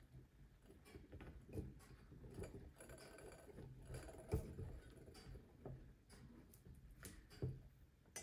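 Faint scraping and light clicks of a corkscrew's blade cutting the foil capsule around a wine bottle's neck, with a few sharper clicks.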